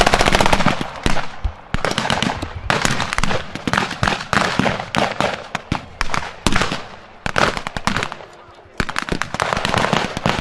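Mock battle gunfire with blank rounds: rapid machine-gun bursts and scattered rifle shots, easing off briefly about three quarters of the way through before firing resumes.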